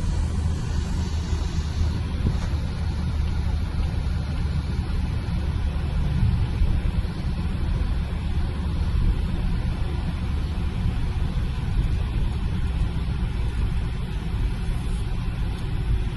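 Car driving along: steady engine and road rumble heard from inside the cabin.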